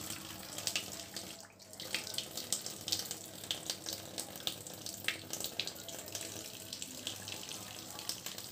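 Water running from a kitchen tap into a stainless steel sink, with many small irregular splashes as hands wash a wet cat under the stream.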